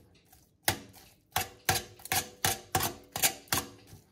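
Two metal forks shredding smoked beef cheeks in a perforated stainless-steel gastronorm pan, the tines clicking and scraping against the steel in a quick run of sharp clicks, about three a second, starting about half a second in.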